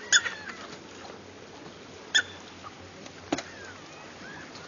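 Ducks calling on the water: two short quacks about two seconds apart, then a sharp tap a little over three seconds in.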